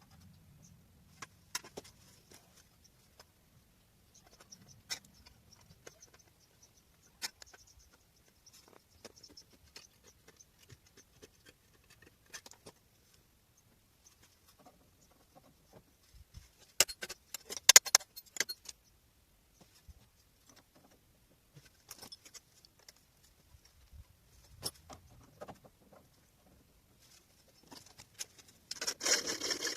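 Hand-tool work on car body sheet metal: scattered light clicks and taps, a short burst of sharp metallic clattering around the middle, and a rasping scrape that starts near the end.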